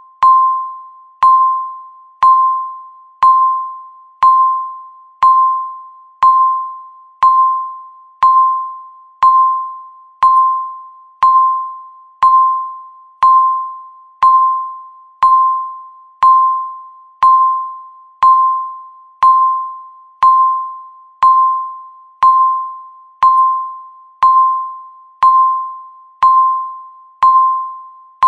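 Countdown timer beeping once a second, each a sharp electronic tone near 1 kHz that dies away before the next.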